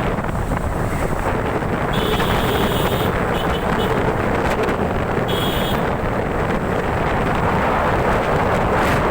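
Steady rumble of wind buffeting the microphone, with two brief faint high-pitched tones about two and five seconds in.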